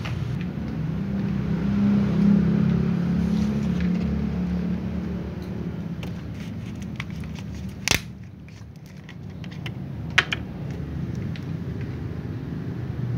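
Low steady rumble of a motor vehicle engine running nearby, easing off about two-thirds of the way through. A sharp click about eight seconds in and a few lighter clicks about ten seconds in.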